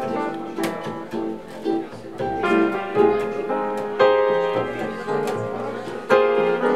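Jazz trio playing a slow tune: piano chords and melody over plucked upright bass, with guitar. Struck piano chords ring out about a second in, again around three and four seconds, and near the end.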